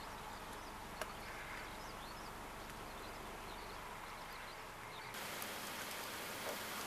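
Faint outdoor ambience with many short, high chirps of small birds over a steady hiss. About five seconds in it gives way to the steady hiss of light rain.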